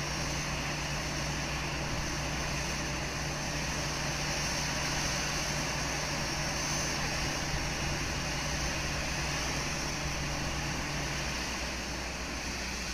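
Steady airport apron noise: a constant mechanical hum and hiss from machinery around the parked airliner, with one low hum cutting off about two seconds before the end.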